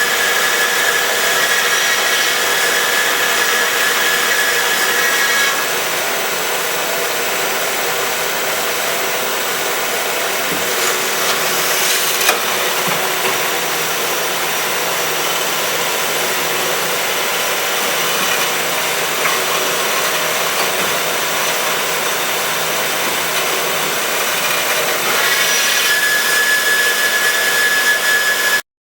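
DoALL DC-280NC horizontal metal-cutting band saw running and cutting, a steady machine noise. A high whine drops out about five seconds in and comes back near the end. There is a single sharp click midway, and the sound cuts off abruptly at the very end.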